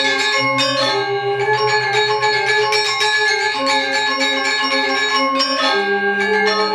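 Balinese gamelan music: bronze metallophones ringing in fast, repeated, interlocking notes with a shimmering, bell-like tone.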